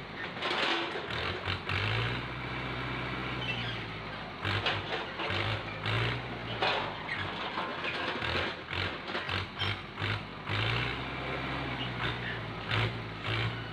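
Farm tractor's diesel engine running as it powers a hydraulic grab crane loading oil palm fruit bunches. Its sound comes and goes in short pulses, with two longer steady stretches.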